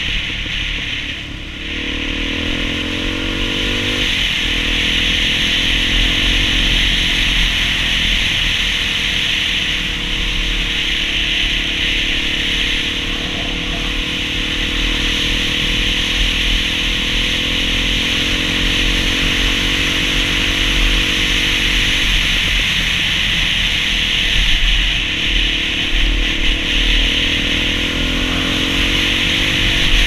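Dirt bike engine running while riding along, its pitch shifting with throttle changes, under a steady rush of wind and road noise.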